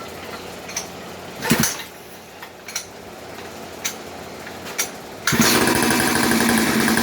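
Brand-new 50cc two-stroke engine on a Coolster mini bike being pull-started: after a few small clicks, it catches suddenly about five seconds in and keeps running steadily.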